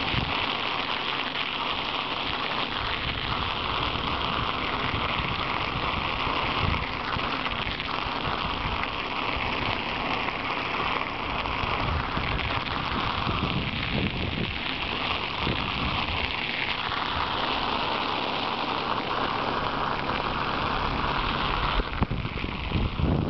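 Bicycle tyres rolling over rough, granular lake ice, giving a steady crackling hiss, with wind on the microphone.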